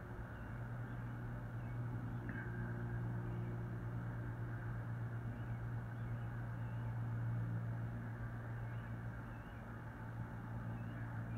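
A steady low hum over a background of noise, with a few faint, short high chirps now and then.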